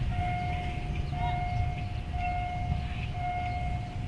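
Railway level-crossing warning alarm beeping for an approaching train: one electronic tone about half a second long, repeating roughly once a second, over a low steady rumble.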